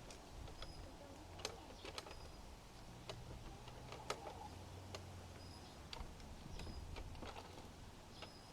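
Plastic Bruder toy excavator being worked by hand in hard dirt: scattered light clicks and scrapes of the bucket and arm, about one a second, quiet.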